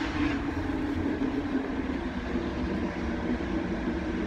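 Interior noise of an older passenger train carriage on the move: a steady low rumble of the running gear with a faint steady hum.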